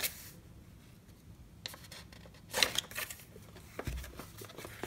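Pages of a Canson sketchbook being turned by hand: short papery swishes and rustles, the loudest about two and a half seconds in, with a few small clicks and a soft low bump near the end.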